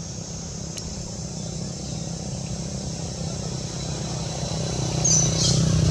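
A motor vehicle engine running steadily and getting louder as it draws nearer, with a jump in loudness about five seconds in. Insects shrill faintly high above it.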